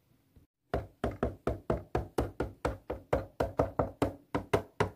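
Quick footsteps: a run of about twenty hard, even taps, about five a second, starting about a second in, as a doll goes up the stairs.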